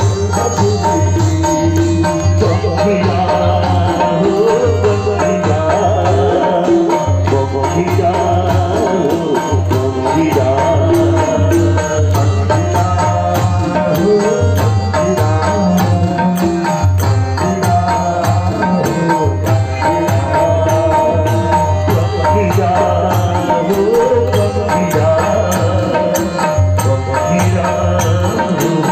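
A Hindu devotional bhajan sung by a male voice through a loudspeaker system, over a steady, repeating drum beat.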